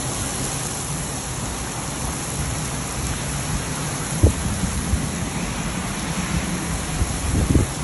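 Heavy downpour of rain with a steady hiss, broken by brief low thumps about four seconds in and again near the end.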